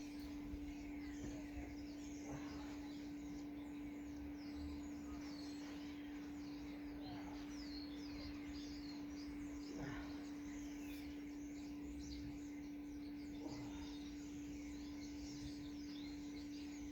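Birds chirping, many short calls, over a steady low hum.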